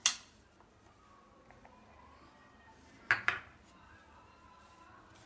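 Wooden spatula knocking against a plate while green chutney is spread on a slice of bread: one sharp knock at the start, then two quick knocks about three seconds in.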